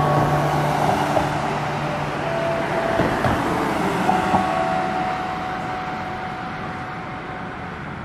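A low held note from the stage sound system, fading away over the first couple of seconds, with a few faint held higher tones. Under it runs a broad rushing noise that swells and then slowly dies down.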